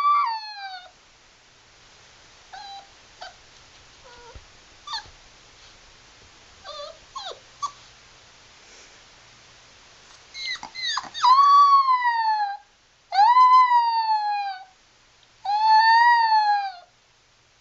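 A cat giving long, drawn-out meows, each rising and then falling in pitch: one at the start, then three in a row in the second half. In the quieter stretch between them there are a few short, faint chirps.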